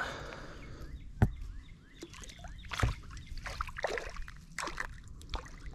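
Hands handling a small crappie on the line at the water's edge: a brief slosh of water at the start, a sharp click about a second in, then a string of irregular rustles and clicks as the fish and hook are worked over.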